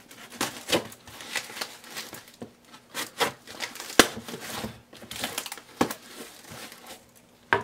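A knife slicing packing tape on a cardboard box, then the tape peeling and cardboard flaps rustling and scraping in short irregular strokes. A sharp click about four seconds in is the loudest sound.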